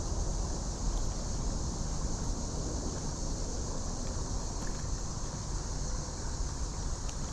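Wind rumbling on the microphone over a steady high hiss of insects.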